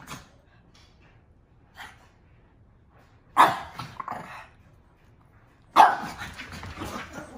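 Two small dogs play-fighting: loud sharp barks about halfway through, then another bark near the end that runs straight into continuous growling.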